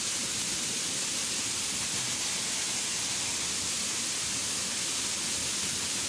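Steady, even rush of a waterfall pouring into a stream pool.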